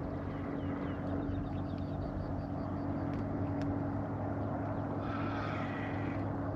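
Boat's outboard motor running steadily at trolling speed, a constant low hum. A faint run of short high chirps comes about two seconds in.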